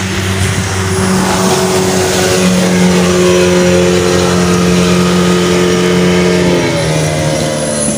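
Speedboat's outboard motor running hard at speed as the boat turns close by, a steady engine tone whose pitch drops near the end as it pulls away.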